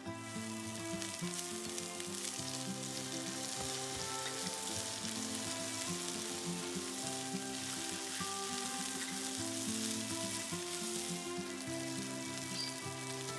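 Food sizzling steadily in hot oil in a frying pan, with soft background music underneath.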